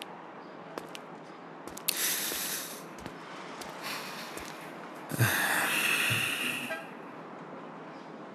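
A person sighing: short breathy exhalations about two and three seconds in, then a longer, louder sigh about five seconds in that lasts over a second.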